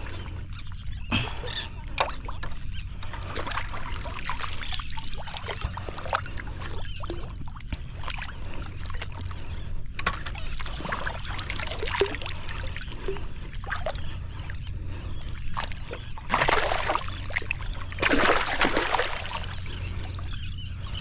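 Sea water lapping and splashing close by, with scattered small clicks and two louder stretches of splashing near the end. A steady low hum runs underneath.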